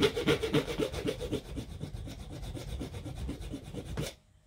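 A blade scraping quick back-and-forth strokes into a car starter motor's housing, scratching alignment marks for reassembly; the scraping stops abruptly about four seconds in.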